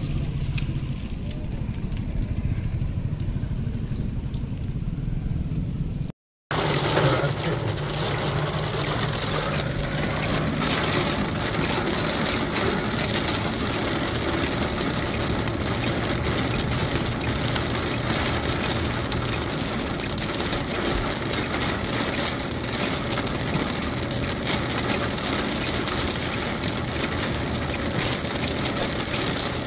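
Heavy rain pelting the windscreen and roof of a moving car, heard from inside, mixed with tyre noise on the wet road: a dense, steady hiss with constant crackle. Before it there is a lower outdoor rumble that cuts off abruptly about six seconds in.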